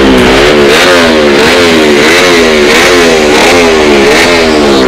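Tuned Honda Wave underbone motorcycle's single-cylinder four-stroke engine being blipped on the throttle over and over, loud, its pitch rising and falling about one and a half times a second.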